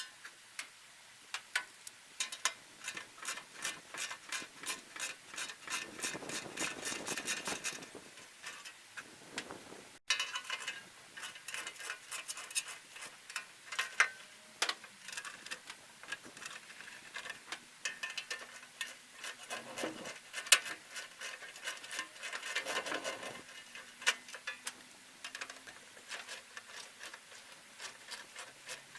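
Hand ratchet wrench clicking in quick runs while bolts holding a cover on a baler are undone, with a few louder metal knocks in between.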